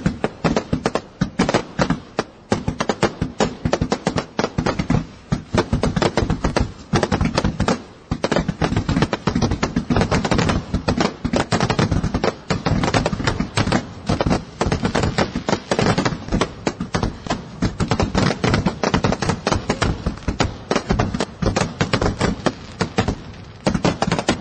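Fireworks going off in a dense, continuous barrage of sharp bangs and crackles, many a second.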